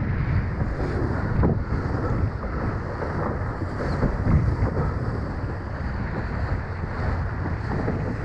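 Wind buffeting the microphone over the rush and splash of water along the hull of a sailing dinghy moving at speed. The sound surges unevenly.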